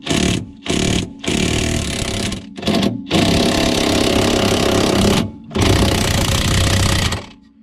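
Cordless impact wrench hammering on a seized 17 mm wheel-hub bolt, in about six loud bursts with short pauses between them, the longest about two seconds.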